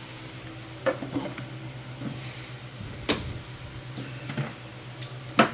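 Handling noise: a few sharp clicks and knocks, the loudest near the end, as a hand reaches around the plastic footwell and takes hold of the loose cabling under the seat. A steady low hum runs underneath.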